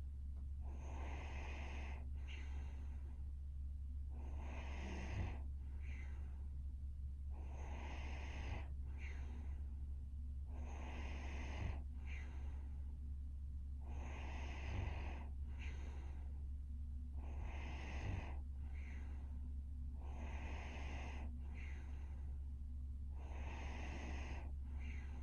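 Young woman snoring lightly in her sleep: slow, regular, airy breaths about every three seconds, each a longer breath followed by a shorter one. A steady low hum runs underneath.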